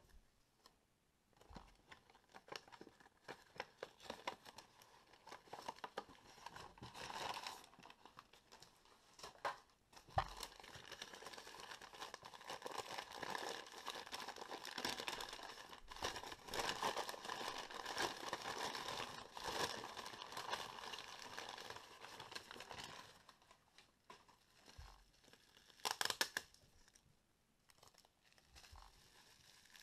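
Newspaper wrapping being crumpled and torn off a small parcel by hand: scattered rustles and taps at first, then steady dense crinkling and tearing through the middle, and a brief sharp rustle near the end.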